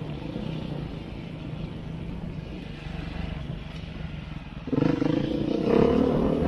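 Beta 390 RRS dual-sport bike's single-cylinder four-stroke engine running at low revs off-road, then revving up sharply and getting much louder about five seconds in.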